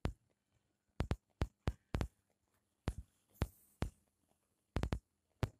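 A string of irregular sharp taps and thumps, about a dozen, some coming in quick pairs, with near quiet between them.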